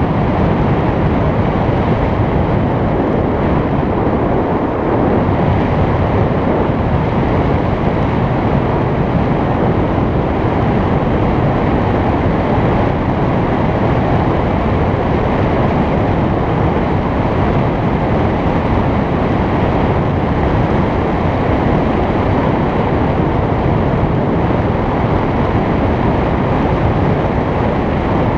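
Steady, loud wind noise buffeting a GoPro's microphone in paraglider flight, an even rush with no breaks.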